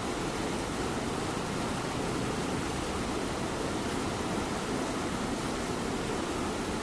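Light rain falling steadily, with a cat purring close by.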